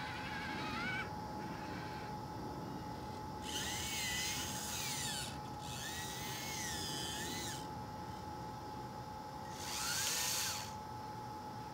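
Small electric motors of an RC Hobby Engine track loader whining in three short runs, about three and a half, six and ten seconds in, the pitch rising and falling as the tracks and arm are worked. A faint steady high tone sits underneath throughout.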